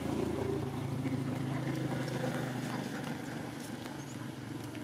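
Steady low drone of an engine running, easing off a little in the second half. A few faint crinkles of a plastic snack bag being handled.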